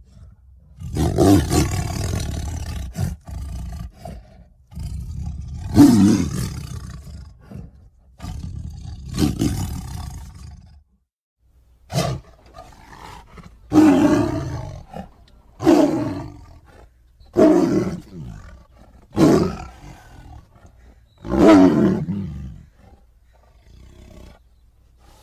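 A string of deep monster roars, about nine in all, each lasting a second or two with short gaps between them; the first three sit over a low rumble.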